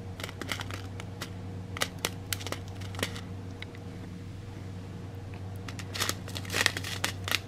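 Clear plastic bag of loose rhinestone drills being handled, crinkling with scattered small clicks, busiest near the end, over a steady low hum.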